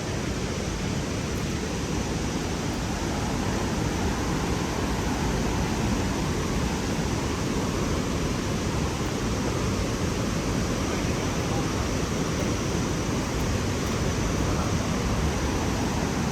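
Steady, even rush of falling water from a large waterfall.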